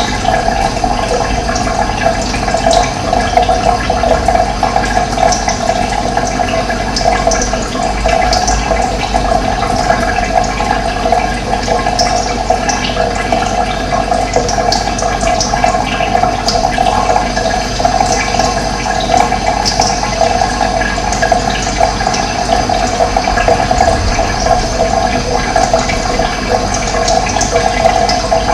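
Steady rush of running water, with short high bird chirps now and then.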